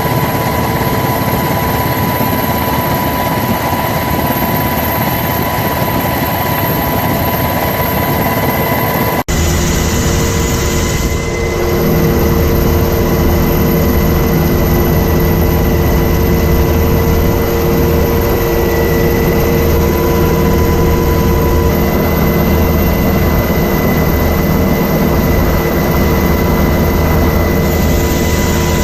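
Steady, loud aircraft engine drone with a constant hum. The sound changes abruptly at a cut about nine seconds in and runs on steady after it.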